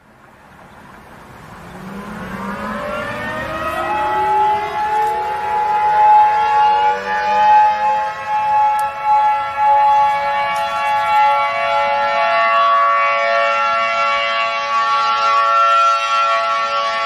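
Civil defense siren starting from silence and winding up in pitch over about four seconds, then holding a steady loud wail of several tones at once.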